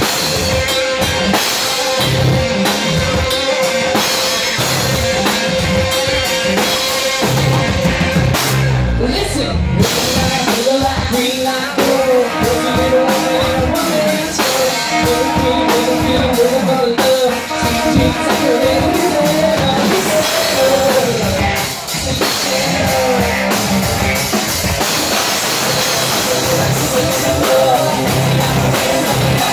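A live rock band playing loudly: drum kit and electric guitar under a man and a woman singing into microphones. A long note is held through the first several seconds before the sung lines move on.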